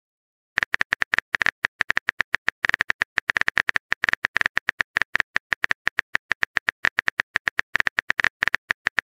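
Texting-app keyboard typing sound effect: a rapid, uneven run of keypress clicks, roughly ten a second, starting about half a second in, as a long text message is typed out.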